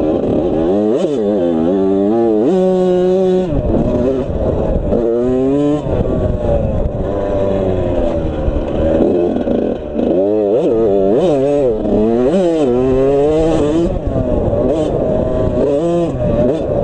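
Suzuki RM85's 85cc two-stroke single-cylinder engine being ridden hard, revving up and falling back again and again as the throttle is worked and gears change, with a few steadier stretches between.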